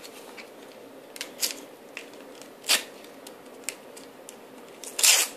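A paper sticker packet being torn open and the stickers inside handled: scattered short rustles and crinkles, with a louder one near the end.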